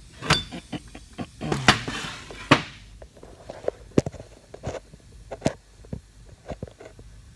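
Irregular knocks, bumps and rubbing from a phone camera being handled and repositioned close to the microphone, with a few louder thuds in the first half.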